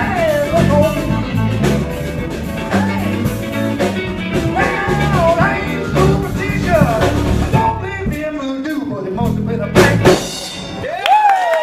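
Live blues band playing the closing bars of a song: lead guitar bending notes over bass and drums. About ten seconds in the band ends on a final hit, and the bass and drums drop out.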